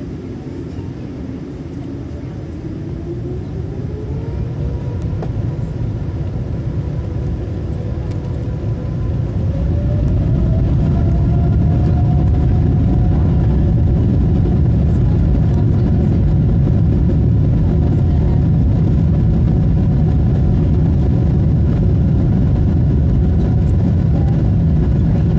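Boeing 777's turbofan engines spooling up to takeoff thrust, heard from inside the cabin: a deep rumble with a whine that rises in pitch and loudness over about the first ten seconds, then holds steady and loud through the takeoff roll.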